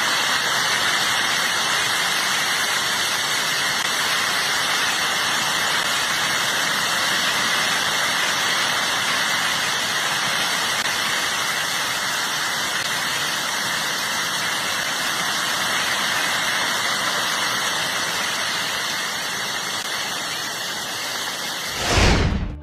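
Steady, loud rushing noise, an even hiss with no rhythm and a faint steady whine in it, that swells briefly and cuts off near the end.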